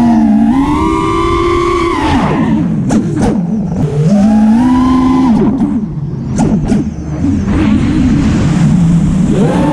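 FPV quadcopter's brushless motors and propellers whining, the pitch climbing and dropping with each throttle punch: it rises about half a second in, drops around two seconds, climbs again near four seconds, falls around five and a half, and rises once more near the end. A few brief crackles come through around three seconds and again between six and seven seconds.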